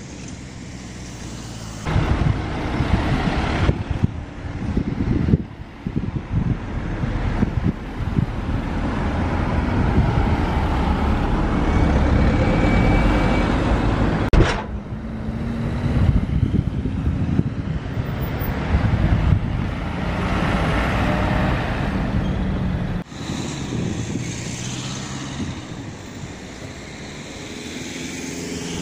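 Road traffic passing at a roundabout: car and engine noise with a heavy low rumble that comes in suddenly about two seconds in and drops away sharply some six seconds before the end.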